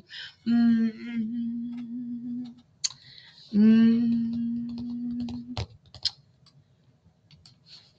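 A woman humming two long level notes, about two seconds each, with a pause between them. Computer keyboard taps and clicks come between and after, one sharper click as the second hum stops.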